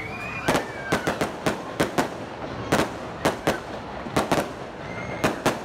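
Aerial fireworks bursting: a quick, irregular run of sharp bangs, roughly two or three a second, with a whistle just at the start.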